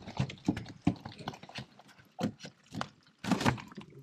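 Irregular knocking and clattering as a crab pot and two large mud crabs are handled, with a few louder clusters of knocks.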